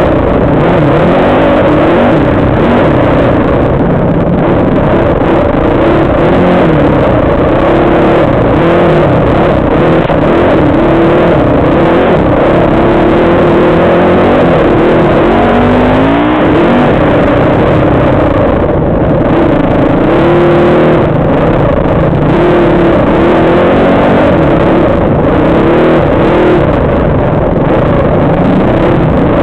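Dirt bike engine, very loud, revving up and down constantly as the throttle is worked over a rough single-track trail.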